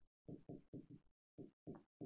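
Near silence, broken by about seven short, faint, low-pitched pulses in two quick groups.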